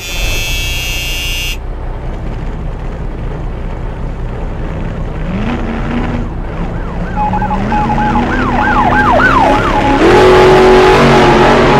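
A steady droning hum that rises in pitch a couple of times, joined past the middle by a rapid up-and-down siren-like wail and a steady broken beeping tone, all growing louder near the end.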